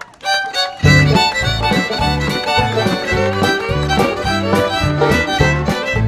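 Fiddle-led country music with a steady stepping bass line; a short lead-in comes first and the full band enters just under a second in.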